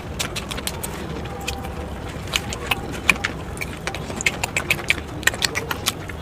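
A person eating: irregular crisp clicks and crunches of chewing, coming thicker in the second half, over a steady low background hum.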